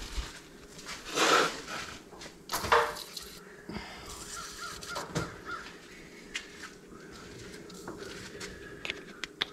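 A crow cawing twice, the first call about a second in and the second near three seconds, followed by a few faint clicks and knocks.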